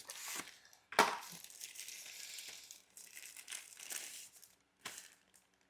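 Packaging rustling and crinkling as the phone's charging cable is pulled out of its box and wrapping, with a sharp click about a second in and a few small clicks near the end.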